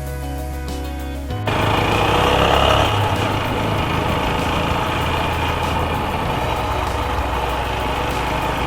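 Background music with steady held notes, cut off abruptly about a second and a half in, followed by the steady running of a TVS Apache RTR 160 4V motorcycle under heavy wind rush.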